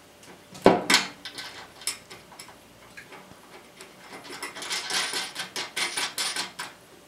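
Small metal clinks and clicks of bolts, nuts and washers against a steel mower deck and spindle housing as the spindle assembly's mounting bolts are fitted and nuts threaded on by hand. A sharp clink less than a second in is the loudest, and a run of quick rattling clicks follows from about four seconds in until near the end.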